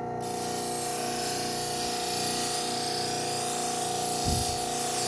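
Electric belt sharpener running with a steady motor hum while a steel knife edge is ground against the moving abrasive belt, giving a steady hiss that starts just after the beginning, with a short low bump about four seconds in.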